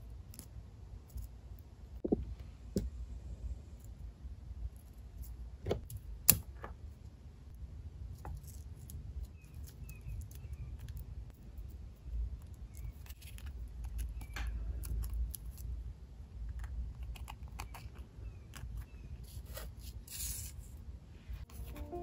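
Metal tweezers tapping and clicking against paper as small pressed flowers and paper pieces are picked up and arranged, with scattered light clicks and paper rustles over a low steady hum.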